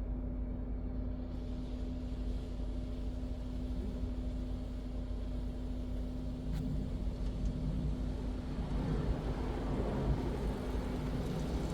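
Automatic car wash machinery running: a steady motor hum with a low rumble. A rushing noise builds over the last few seconds.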